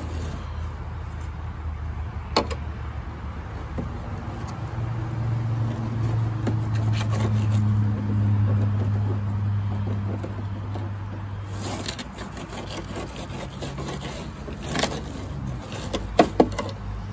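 A motor vehicle's engine running nearby: a low hum that swells in the middle and fades away about twelve seconds in. A few sharp clicks and scrapes of a fillet knife on a plastic cleaning board, mostly near the end.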